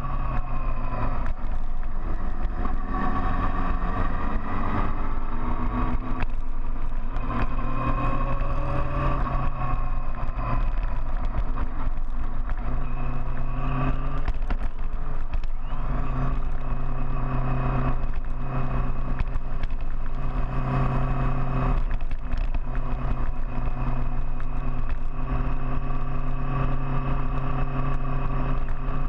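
Big motorcycle engine running under way, its pitch rising and falling over the first ten seconds or so, then holding steady.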